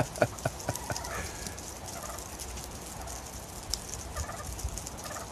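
Indian runner ducks quacking: a quick run of short quacks in the first second, then a few scattered, fainter calls.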